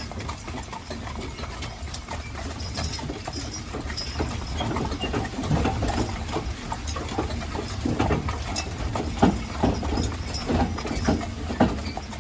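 Hooves of a pair of Haflinger horses clip-clopping as they pull a wagon, the beats crowding closer from about five seconds in, over a steady low rumble.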